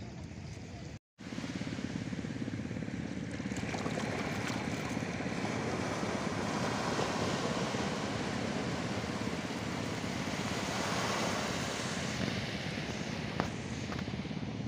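Sea waves washing over a flat sandy beach: a steady rushing with a strong low rumble. The sound cuts out briefly about a second in.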